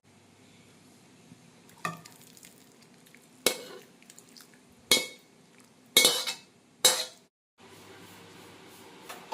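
Metal utensil knocking against cookware and dishes while serving up food: about five sharp clinks with short ringing, roughly a second apart.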